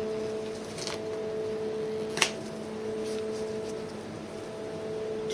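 A steady hum with a sharp plastic click about two seconds in, as the pull ring is torn off the port of an IV piggyback bag.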